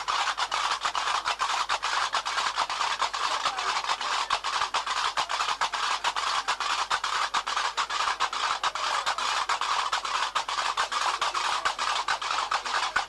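Fast, steady percussion music, with dense strokes coming several times a second without a break.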